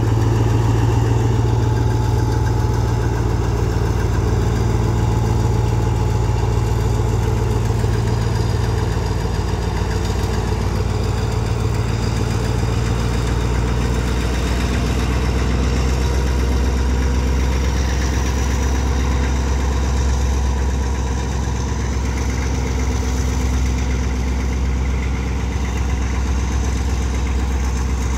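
Alstom diesel-electric locomotive running under power as it hauls a passenger train away, a steady deep engine drone whose lowest note drops lower about a third of the way through.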